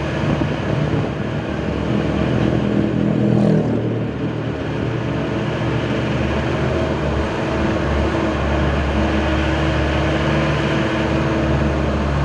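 Old Mitsubishi L300 pickup's engine running steadily while it pulls a really heavy, overloaded cargo, heard from inside the cab. The engine note changes about three and a half seconds in.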